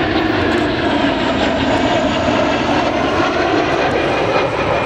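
Four CFM56 turbofan engines of a Boeing KC-135R Stratotanker passing overhead in a flyby, a steady jet engine noise.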